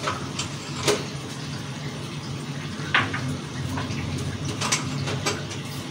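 A steady rushing background noise with a low hum, broken by three light clicks.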